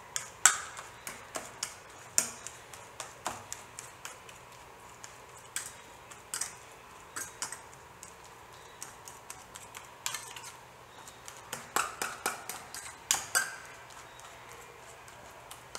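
Fork mashing ripe bananas in a stainless steel bowl: irregular clicks and taps of the metal tines striking the bowl, a few a second, with a quieter stretch in the middle.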